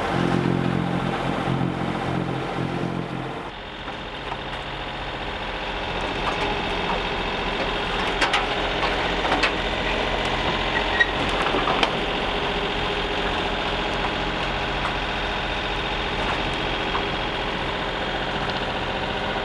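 Sailboat's engine running steadily while motoring, easing a little in level about three and a half seconds in. A few light knocks sound in the middle.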